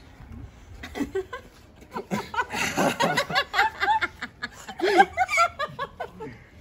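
A group of people laughing together, starting about a second in and growing into a dense run of overlapping laughter.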